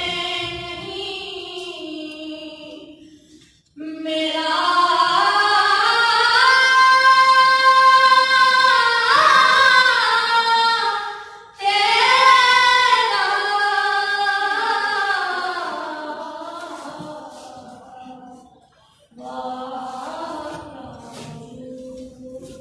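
A boy's solo voice reciting a naat unaccompanied, in long sung phrases that slide up and down in pitch. The phrases are broken by short breath pauses about four, eleven and a half, and nineteen seconds in.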